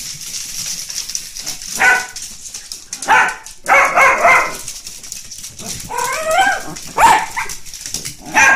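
Dachshunds barking excitedly in short, loud barks, starting about two seconds in, with a quick run of barks a little later and a rising whine in between; it is the dogs' excited greeting when their owner comes home.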